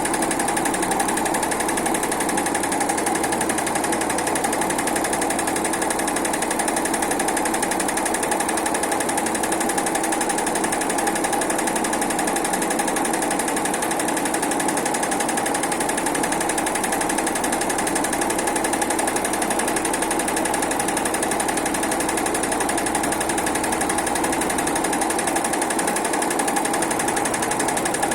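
Heating-wire sewing machine running steadily, its needle stitching at a fast, even rate with a constant hum.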